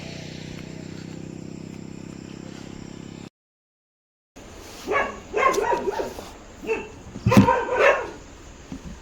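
A dog barking several times in quick succession, the loudest bark about two-thirds of the way in. Before it, a steady low hum cuts off abruptly about a third of the way in, leaving a second of silence.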